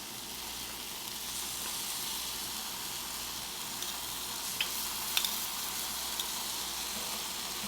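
Vegan meatballs sizzling steadily in a non-stick frying pan with a little vegetable broth. A few light clicks of metal spoons against the pan come about halfway through as the meatballs are turned over.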